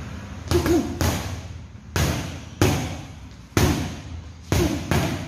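Boxing gloves punching teardrop-shaped heavy bags: about eight hard blows, singly and in quick pairs, each with a short echo.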